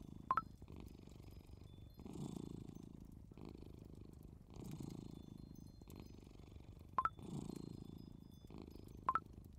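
Cat purring steadily, swelling with each breath about every two and a half seconds. Three short rising pings sound over it: one just after the start and two near the end.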